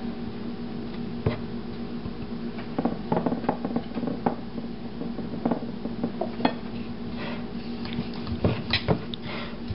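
Rolling pin working a ball of dough on a round wooden rolling board, with irregular light knocks and taps of the pin and board on the counter. A steady low hum runs underneath.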